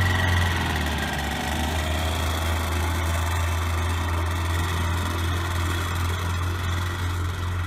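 Powered paraglider trike's engine and propeller running steadily as the trike taxis away, a constant low-pitched drone.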